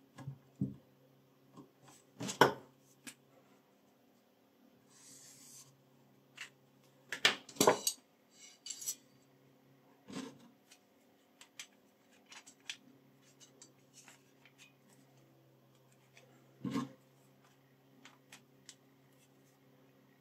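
Scattered clicks, clacks and knocks of the metal parts of a BECKYRE BY-200R fixed-angle knife sharpener being handled as a knife is clamped and the guide rod and whetstone holder are fitted. The loudest knocks come about 2 seconds, 7 seconds and 17 seconds in, with a brief soft rubbing hiss about 5 seconds in.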